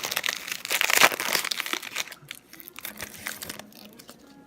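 Crinkling of a trading card pack wrapper being handled and torn open, loudest about a second in, then tapering off to a few light ticks.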